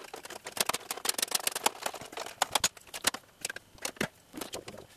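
Quick, irregular metallic clicks and rattles as the retaining bolt of a washing machine drum's shock absorber is worked loose with a hand tool.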